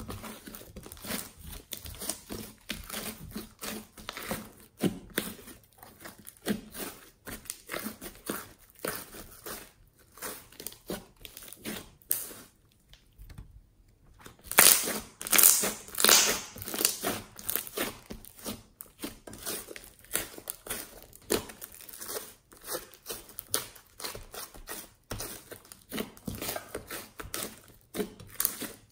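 Fluffy slime being kneaded and squeezed by hand, giving a stream of quick sticky crackles and pops. After a short pause about halfway, the crackling turns louder as the slime is pulled up and stretched.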